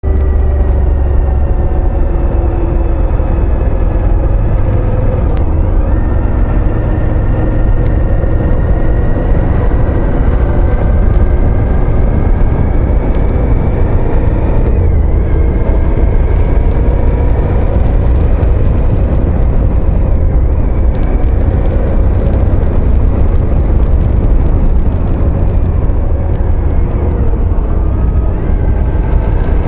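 Motorcycle riding along, its engine note rising and falling with the throttle under a heavy rumble of wind on the microphone.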